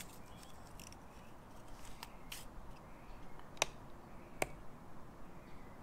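Four light, sharp clicks spread over about two and a half seconds, against faint background hiss: hands pressing the buttons of a digital scale and handling small parts of a knife sharpness tester.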